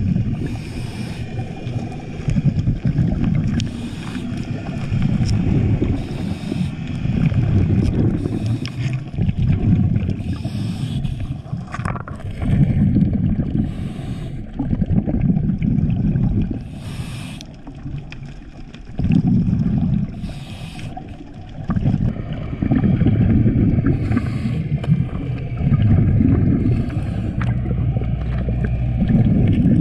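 Diver breathing through a regulator underwater: a short airy hiss on each inhalation, then a burst of rumbling, gurgling exhaust bubbles, repeating every two to three seconds.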